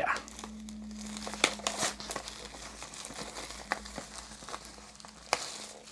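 Clear plastic shrink-wrap film being peeled and pulled off a steelbook case, crinkling, with a few sharp crackles.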